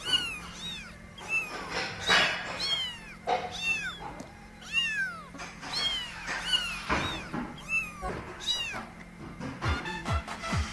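A kitten meowing over and over in short, high-pitched calls, each rising and then falling in pitch, roughly one or two a second.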